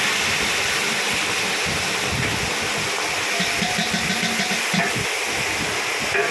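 Leafy greens sizzling and steaming in a hot wok under a metal dome lid: a loud, steady hiss over the low rumble of the gas wok burner. Near the end the metal lid clinks as it is lifted.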